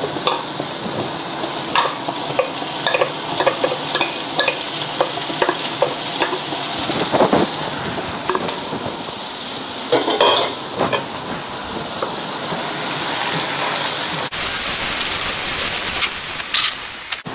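Butter, onions and garlic sizzling in a frying pan as sliced soaked shiitake mushrooms are tipped in and stirred with a wooden spatula. Scattered clicks and scrapes sound over a steady sizzle, and the sizzle grows louder and hissier near the end.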